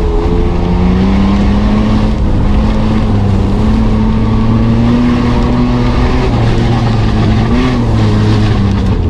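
Mitsubishi Pajero's engine running hard, heard from inside the cab. Its pitch climbs slowly over several seconds, dips briefly near the end and then falls off.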